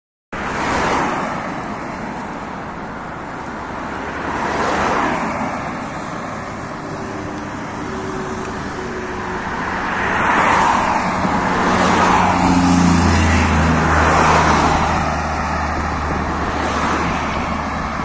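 Road traffic: cars passing by one after another, their tyre noise swelling and fading several times. About twelve seconds in, a closer vehicle adds a low engine hum that lasts a few seconds.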